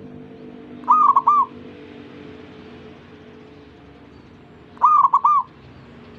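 Zebra dove (perkutut) cooing: two short phrases of three quick clear notes each, about four seconds apart.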